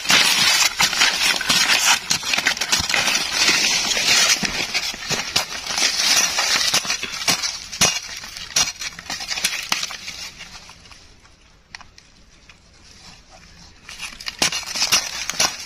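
Digging and scraping in dry soil with a hand tool, a dense run of crunches and small knocks as earth is broken up. It goes quieter for a few seconds, then the knocks start again near the end.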